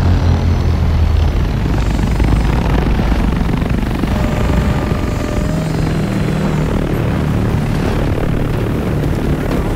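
Film sound of a Dune ornithopter, the flapping-wing aircraft, flying nearby: a loud, steady, low droning thrum, with a few faint higher tones partway through.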